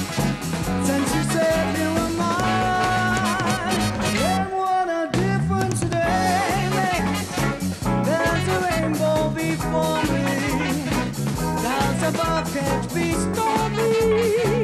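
A woman singing a ballad with vibrato on the held notes, backed live by a band of trumpet, saxophones, electric guitar and bass. About four seconds in the band stops for a moment while she holds a note, then comes back in.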